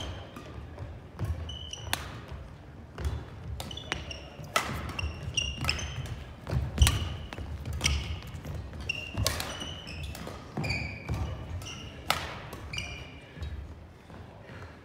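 Badminton rackets striking shuttlecocks with sharp cracks at irregular intervals, from this and neighbouring courts. Shoes squeak and footsteps thud on the hardwood gym floor between the hits.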